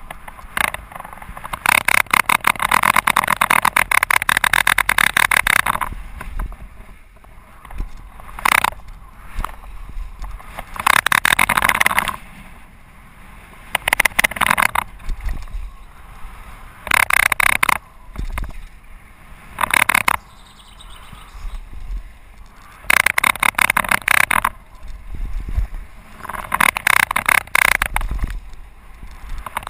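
Mountain bike ridden fast down a gravel trail. The rear hub's freewheel buzzes in repeated bursts of rapid ticking while the rider coasts, about eight times, with quieter stretches of tyre and wind rumble in between.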